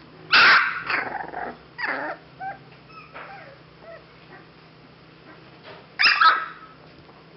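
English bulldog puppy barking. There is a loud bark about half a second in, then a few shorter, squeaky calls over the next few seconds, and another loud bark near the end.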